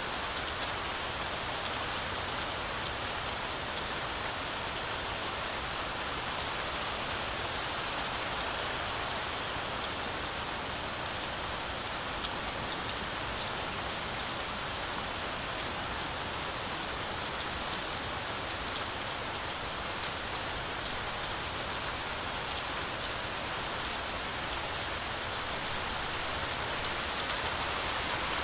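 Heavy rain falling steadily on a forest canopy, a continuous hiss with scattered drop ticks.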